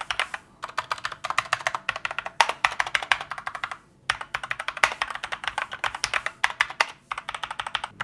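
Fast typing on a Rampage Exhero mechanical keyboard with Outemu red linear switches: rapid runs of key clacks in bursts with brief pauses. There is no spring noise, and only a slight ringing from the metal plate when the big keys are hit hard.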